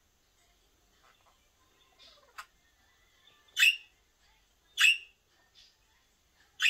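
Budgerigar giving three loud, sharp chirps spaced a second or two apart, after some faint soft chattering.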